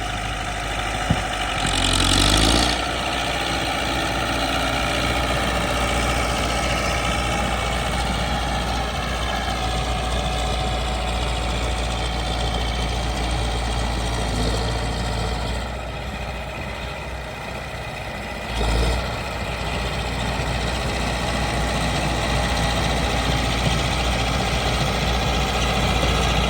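Diesel engine of a DT-75 crawler tractor running steadily while it pushes snow, with a brief louder rush about two seconds in and another short one near 19 seconds.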